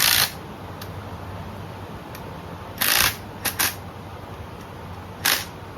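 Connecting rods being shoved sideways on the crankshaft journals to check their side clearance: five short, sharp clacks at uneven intervals, two of them close together.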